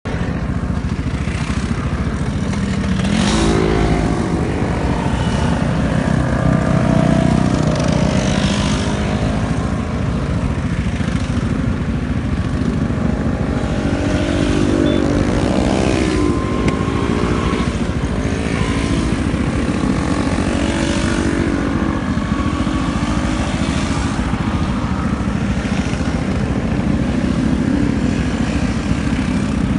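A long column of Vespa scooters riding past one after another, their small engines running continuously. Single scooters rise and then fall in pitch as they pass close by, notably a few seconds in and again about halfway through.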